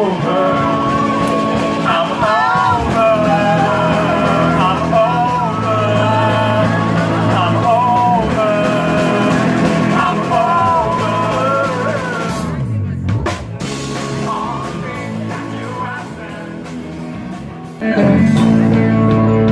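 Rock band playing, with drums and guitar under a bending lead melody line. About twelve seconds in the band drops to a thinner, quieter passage, then comes back in loud near the end.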